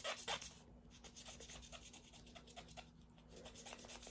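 Quick, faint scrubbing strokes of a small cleaning brush against a Glock 19 pistol part during cleaning, loudest in the first half second.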